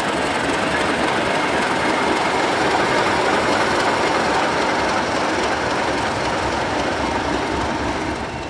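Class 31 diesel locomotive running past and pulling away, its engine a loud, steady drone that eases a little near the end as it moves off.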